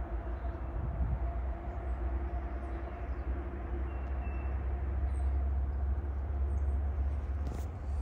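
A steady low rumble with a droning hum that fades out about halfway through, and faint high bird chirps over it.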